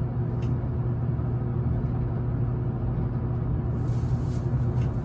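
Steady low rumble of a Meitetsu 1000 series electric train running, heard from inside the passenger car, with a faint click or two.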